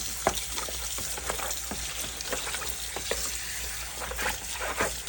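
Hands washing a raw parrot fish in a bowl of lemon wash: wet splashing and squelching with many irregular small clicks and crackles.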